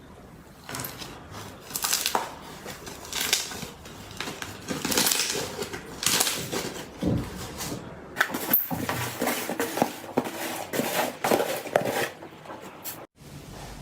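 Slime being squeezed and pressed by hand, making irregular wet squelches and short pops.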